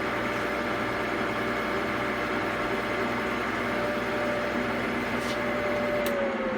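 Electric buffing machine running steadily, its buffing wheel polishing lacquer with rough rouge; about six seconds in its hum drops in pitch as the motor is switched off and starts to spin down.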